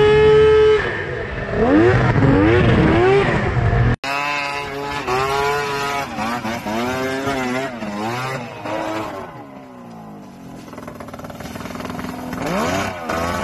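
Two-stroke triple snowmobile engines revving up and down while riding in snow, the pitch rising and falling again and again. A sudden cut about four seconds in switches to a second sled. Its engine eases off and goes quieter just past the middle, then builds again near the end.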